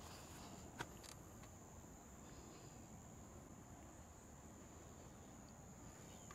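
Near silence with a faint, steady high-pitched insect trill, and a couple of soft clicks about a second in.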